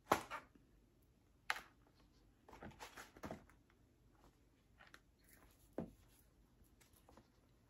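Handling noises of a towel cake, kitchen utensils and a plastic tumbler being moved on a tabletop: scattered light knocks and brief rustles, with a sharp knock at the start, another about a second and a half in, a cluster of rustles around three seconds and a knock near six seconds.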